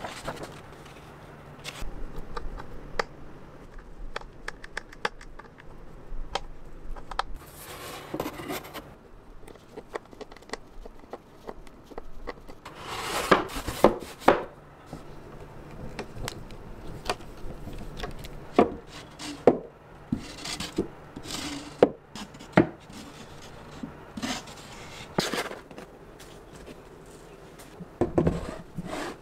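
A kitchen knife chopping on a cutting board in irregular knocks, with a few brief louder noisy passes about 8 and 13 seconds in.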